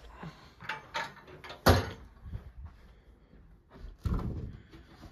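Cabinet doors being handled: one sharp bang about one and a half seconds in as the small yellow flammables-cabinet door is shut, with lighter clicks and knocks around it. Near four seconds comes a duller thump as the tall printer-enclosure door is pulled open by its handle.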